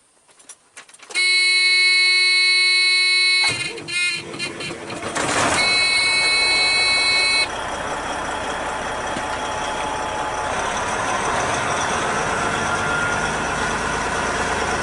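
Big truck's warning buzzer sounding as the key is switched on, then the starter cranking slowly and dragging for about two seconds before the engine catches, a buzzer tone over it. The engine then settles into a steady run. The slow drag is a sign of a weak starter, which the mechanic suspects is damaged.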